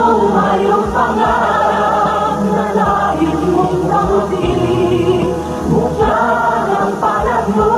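A group of voices singing together over a backing band, with a sustained bass and drum hits.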